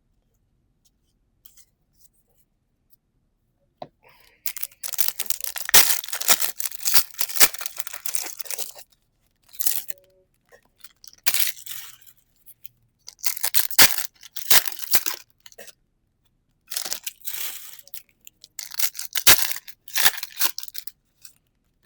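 Pokémon booster pack foil wrapper crinkling and tearing in several bursts of a second or two each, starting about four seconds in.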